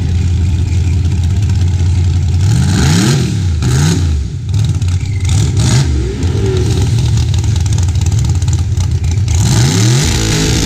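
Drag race car engines idling with a steady low rumble, with several quick revs that rise and fall a few seconds in and another rev near the end as the cars pull up to the starting line.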